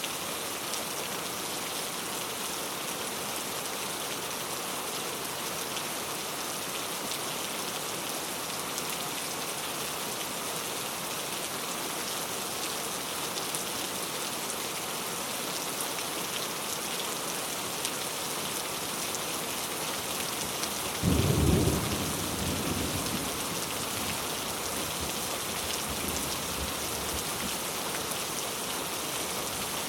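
Steady rain falling, an even hiss. About two-thirds of the way through, a sudden loud low rumble breaks in and fades off over a few seconds.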